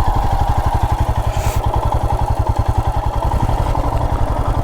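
Royal Enfield Himalayan's 411 cc single-cylinder engine running at a steady low beat, with a brief hiss about a second and a half in.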